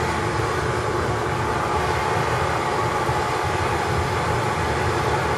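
Small homemade propane forge's burner running with a steady, unbroken rush of noise while steel heats in it. No hammer blows.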